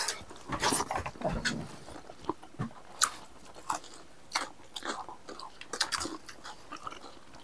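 A man chewing and biting pieces of beef close to the microphone, eating with his hands: irregular short clicks and mouth noises.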